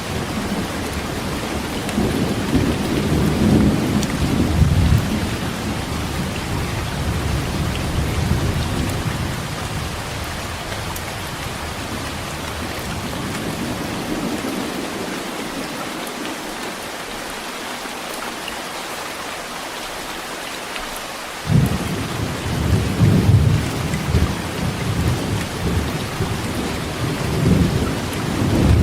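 Heavy rain falling steadily with thunder rumbling. The rumble fades away about halfway through, then a sudden thunderclap breaks in about 21 seconds in and rolls on.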